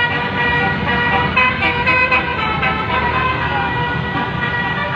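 Indonesian bus 'telolet' basuri horn playing a multi-note tune, steady tones switching pitch every fraction of a second, over the low rumble of the bus.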